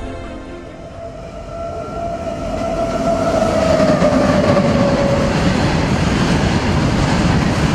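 A long freight train of covered wagons running past a station platform, its rumble and wheel clatter building over the first few seconds and then staying loud and steady. A long horn note sounds as it approaches, sliding slightly lower in pitch.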